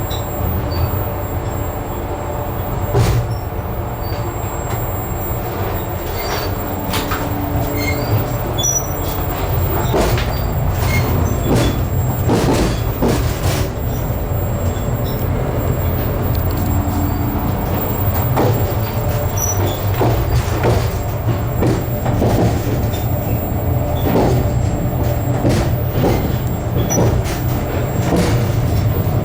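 Express passenger train running along the line, heard from on board: a steady low rumble of the wheels on the rails with frequent irregular clicks and knocks, getting slightly louder partway through.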